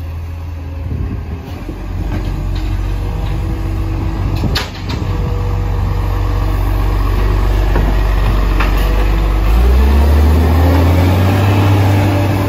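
Side-loader recycling truck's diesel engine running, with one sharp click about four and a half seconds in. Near the end the engine note rises and grows louder as the truck revs.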